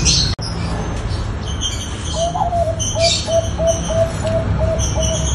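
Perkutut bangkok (zebra dove) cooing. From about two seconds in, it gives a long run of short, evenly spaced coos, about three a second. Small birds chirp higher above it.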